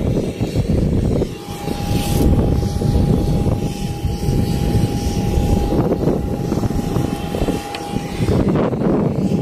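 Aircraft turbine noise: a loud, uneven rumble with a steady whine over it, the whine dropping out for about the first second.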